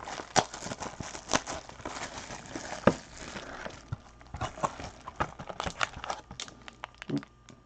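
Plastic shrink wrap crinkling and a cardboard trading card box being opened by gloved hands, with irregular clicks and taps as the lid comes up and the pack inside is pulled out.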